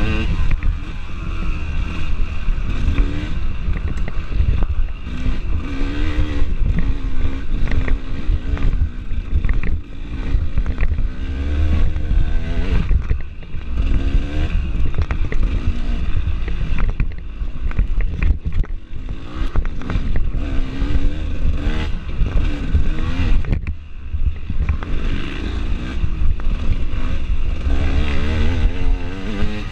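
Dirt bike engine revving up and down over and over as the rider works the throttle through the trail, close to a handlebar-mounted microphone with heavy rumble. Frequent short knocks and rattles from the bike bouncing over bumps.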